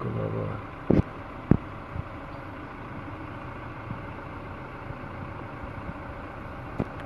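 Steady background motor hum, like an idling engine or passing traffic, with two sharp knocks about a second in and half a second apart, and a few lighter ticks later.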